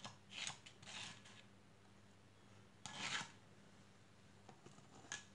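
A few short, soft scrapes of a spatula against a stone mortar, scraping ground spice paste out into the pot.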